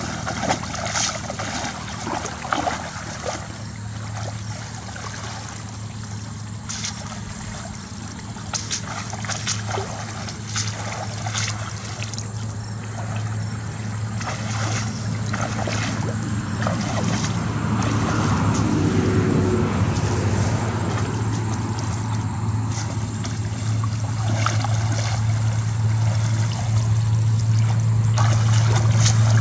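Muddy water sloshing and splashing as a woven bamboo basket is dipped and dragged through a shallow pond. Under it runs a steady low motor hum that grows louder toward the end.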